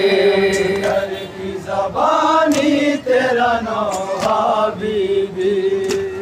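Men's voices chanting an Urdu noha lament through a microphone and PA, the lead melody rising and falling over a steady held note from the other reciters. A few sharp hits sound over the chant.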